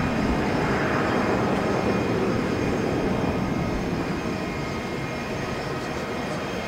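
Boeing 737-500's CFM56 turbofan engines at takeoff thrust as the jet climbs out, a steady deep rushing rumble that drops slightly about four seconds in.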